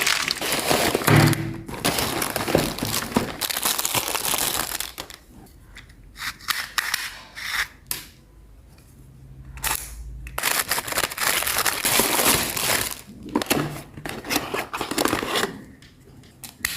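Plastic packaging crinkling and rustling in irregular bursts as it is handled and torn open, over music. A low steady hum runs for about two seconds midway.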